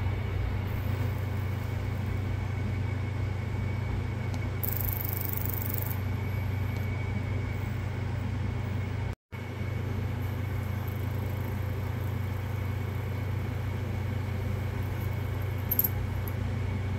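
A steady low machine hum with a thin high whine over it, briefly cut off about nine seconds in, with a short hiss about five seconds in.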